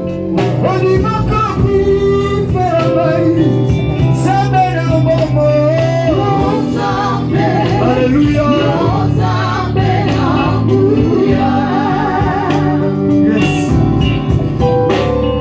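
Gospel song: voices singing a melody with vibrato over a band with guitar.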